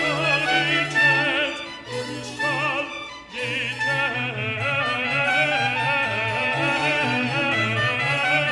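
Baroque orchestral music: strings over a low bass line, with a solo line sung or played with vibrato above them.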